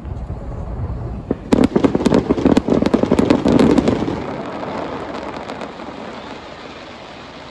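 Fireworks show: a low rumble, then a dense volley of sharp bangs and crackles from about a second and a half to four seconds in, followed by a fading rumble.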